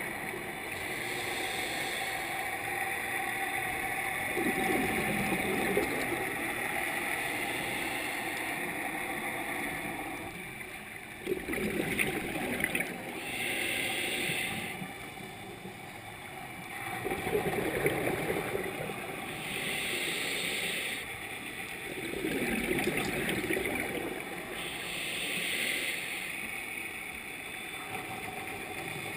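Scuba diver breathing through a regulator underwater: a hiss on each inhale alternating with the gurgling rush of exhaled bubbles, about one breath every five or six seconds.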